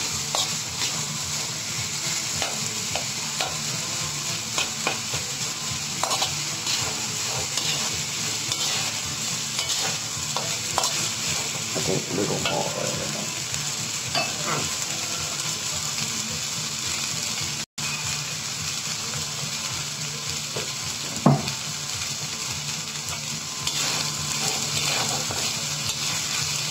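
Fried rice sizzling in an aluminium wok while a metal spatula stirs and scrapes through it, with many small scraping clicks over a steady hiss. A single sharp knock stands out a few seconds after the middle.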